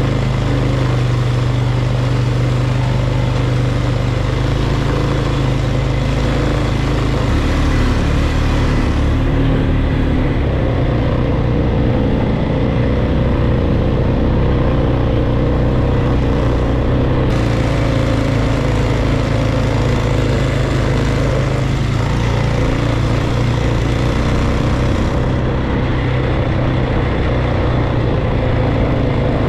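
Polaris ATV engine running under way on a dirt trail, its pitch shifting up and down with the throttle, over a steady hiss.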